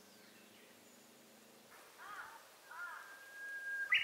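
A bird singing outdoors: a few short arched notes, then a long steady whistle, ending in a loud quick phrase that climbs higher.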